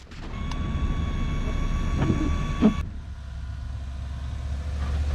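GMC pickup truck's engine running as the truck drives slowly through deep snow, a low rumble that grows louder as it approaches. In the first few seconds a steady high-pitched whine sits over the rumble and stops abruptly about three seconds in.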